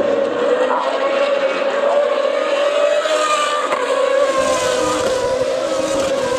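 Race car engines circulating on the circuit, blending into a steady, slightly wavering drone.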